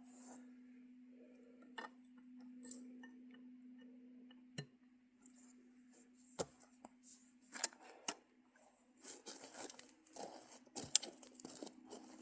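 Scattered sharp metallic clicks and rustling from a big-bore pinfire rifle being handled, over a steady low hum; no shot is fired.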